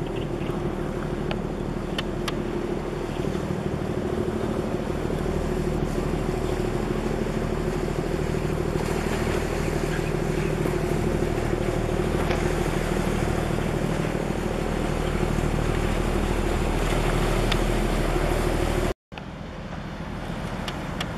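A livestock carrier's engines running with a steady low hum and drone as the ship passes, mixed with a haze of wind and water noise. The sound cuts out briefly near the end and comes back quieter.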